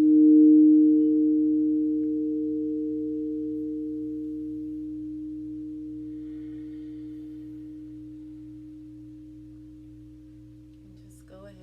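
A struck sound-healing instrument ringing out in two steady pure tones, with a slow wavering pulse at first, fading away gradually.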